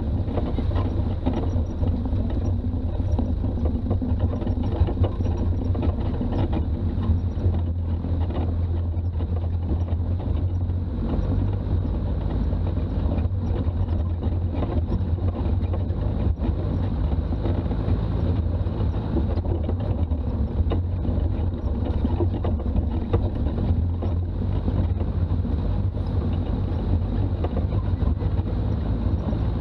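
Toyota Land Cruiser BJ40's diesel engine and road noise while driving: a steady, unbroken low rumble.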